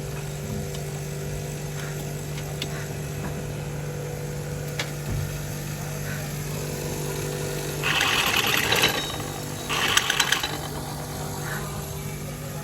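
An engine running steadily at idle, with two short bursts of loud hissing, rattling noise about eight and ten seconds in.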